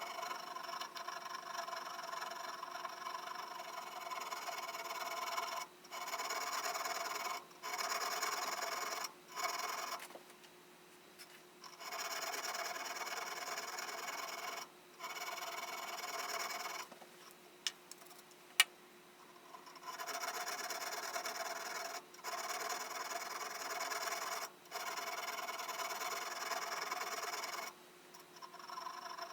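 A 600-grit barrette file rubbing back and forth over the steel of a brace auger bit, sharpening and polishing its working surfaces. It runs in long stretches of steady rasping with brief breaks, stops for a few seconds twice near the middle, and gives a sharp tick or two during the second stop.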